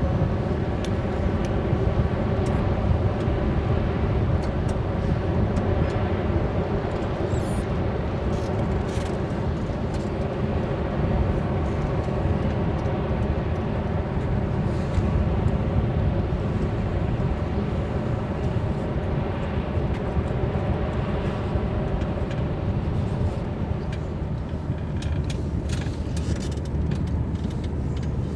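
Passing cruise ship's machinery: a steady low drone with a humming tone over it, carried across the water.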